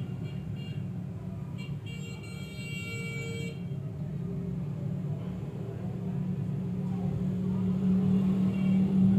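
Battered chicken pakora pieces deep-frying in a wok of hot oil: a steady low bubbling rumble that grows louder over the last few seconds as more pieces go in. A brief high horn-like tone sounds about two seconds in.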